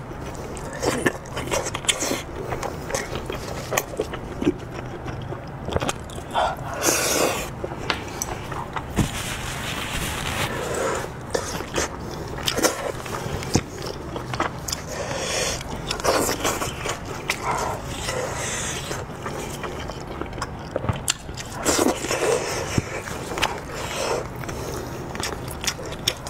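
Chewing and biting of spiced sheep's head meat, with gloved hands tearing and scraping the meat off the skull bones. The sounds are irregular wet clicks and smacks, with no steady rhythm.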